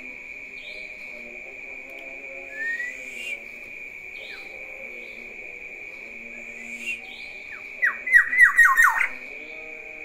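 Black-naped oriole singing: a short rising whistle about a third of the way in, then near the end a loud, quick run of about six downward-sliding notes. A steady high-pitched tone runs underneath throughout.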